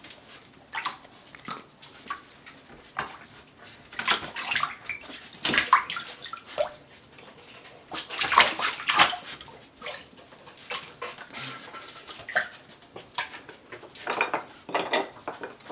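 Raccoons splashing and sloshing about in water, in irregular bursts with louder clusters of splashes every few seconds.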